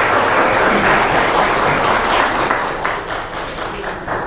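Audience applauding, the clapping thinning out and stopping near the end.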